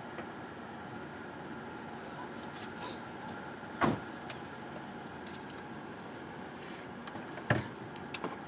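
Two sharp knocks, about four seconds in and near the end, the second the loudest, over a steady background hum.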